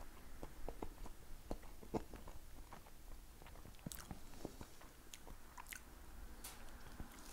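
Faint chewing of jam toast: irregular small crunches and mouth clicks.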